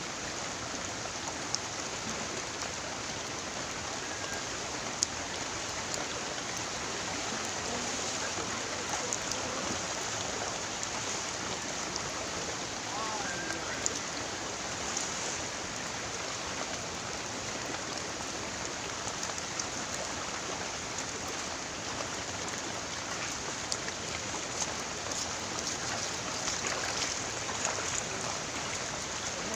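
Steady rushing noise of flowing river water, with a few faint clicks here and there.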